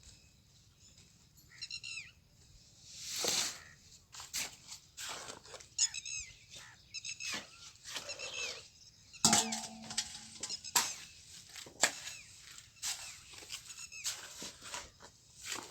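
Short high-pitched animal calls, coming in small groups every second or two, among scattered sharp knocks.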